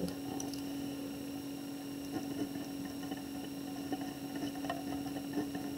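Steady electrical hum, with faint scratching ticks of a felt-tip marker writing on paper in the second half.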